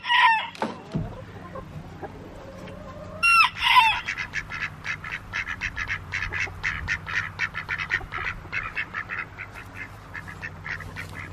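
Ducks quacking: a quick run of short quacks, several a second, after a louder, longer call about three seconds in.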